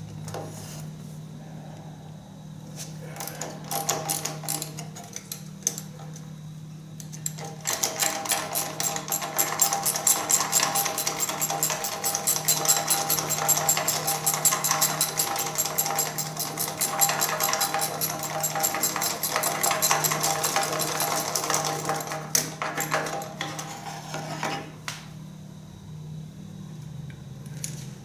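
Hand socket ratchet clicking as it turns a bolt: scattered clicks and knocks at first, then a long run of fast, even ratchet clicks from about eight seconds in that stops a few seconds before the end. A steady low hum runs underneath.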